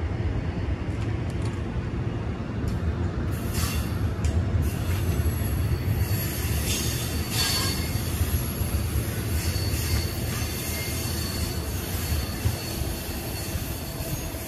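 MARC bilevel commuter coaches rolling past on the rails: a steady low rumble of wheels with a thin, high wheel squeal, briefly louder twice in the first half.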